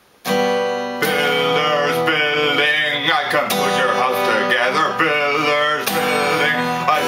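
Steel-string acoustic guitar strummed, starting suddenly about a quarter second in, with chords struck about once a second. A man's voice sings over it.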